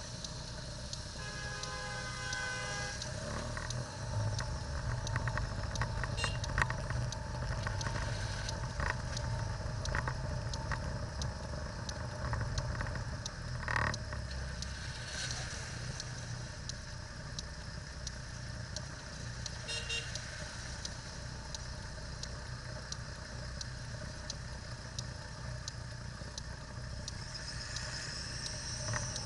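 Car running, heard from inside the cabin as a steady low rumble, with rain and faint regular ticking. About a second in, a car horn sounds for roughly two seconds.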